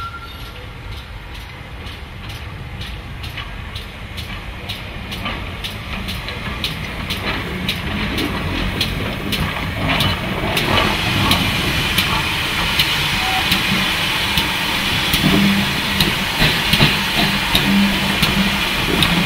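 Great Western pannier tank steam locomotive hauling coaches, drawing closer and growing louder, with a regular clicking of its wheels over the rail joints. From about halfway there is a strong steam hiss.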